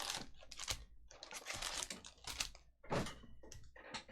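Irregular run of light clicks and rustles, many short strokes in quick succession.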